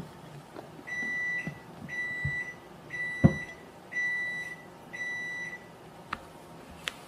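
An electronic kitchen appliance beeper sounds five steady, high beeps, about one a second. A single sharp click comes between the third and fourth beeps.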